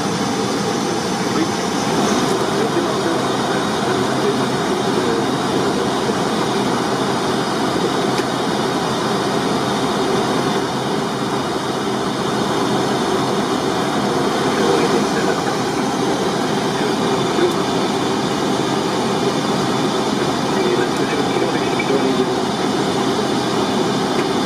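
Steady flight-deck noise of a Boeing 737 in flight: an even rush of airflow with engine noise beneath it, unchanging throughout.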